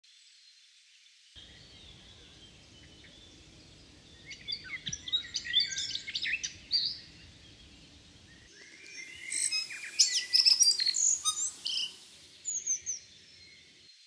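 Tui singing: two bouts of quick, varied gliding notes mixed with clicks, the second bout, from about two-thirds of the way in, the louder, then a short phrase near the end.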